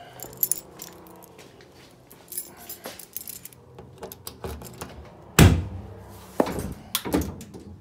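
Keys jangling amid handling noise while someone climbs into a car, with one heavy thud about five and a half seconds in and two lighter knocks after it.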